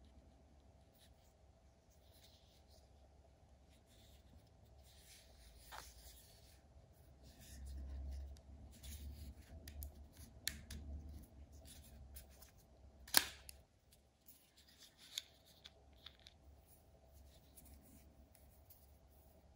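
Handling of a plastic and metal bit-and-socket set: soft rubbing and rustling with scattered small clicks, and one sharp click about thirteen seconds in as the quick-release bit holder is pulled from its clip.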